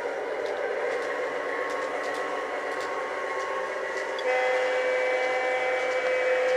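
A Lionel Alco S4 switcher model locomotive running along the track with a steady motor and wheel hum, then its horn sounding one long steady blast from about four seconds in.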